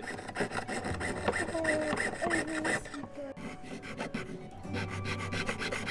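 Jeweller's saw cutting through a metal coin held on a wooden bench pin: rapid rasping back-and-forth strokes, several a second, with a short pause about three seconds in.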